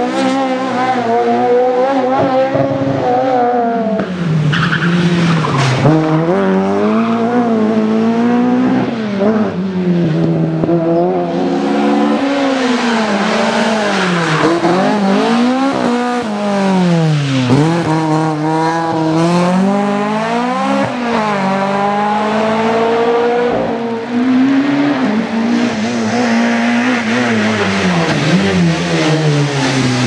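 Opel rally cars' four-cylinder engines revving hard one after another, the pitch climbing and dropping again and again through gear changes and lifts for the bends.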